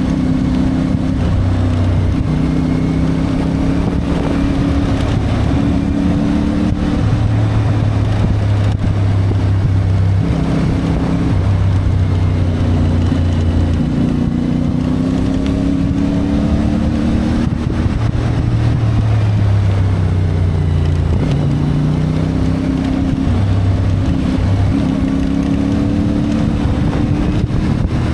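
A CFMoto 450MT's parallel-twin engine running while the bike is ridden. Its pitch climbs, breaks and drops again every few seconds as it accelerates, changes gear and eases off, with wind on the microphone.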